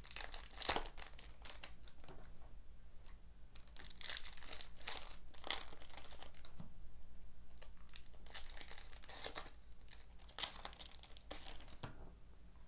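Foil trading-card pack wrappers being torn open and crinkled by hand, in several crackling bursts with short pauses between them.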